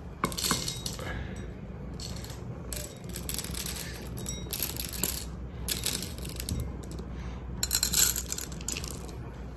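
Dry cat treats rattling and clinking in several separate bursts, being shaken or poured out at snack time.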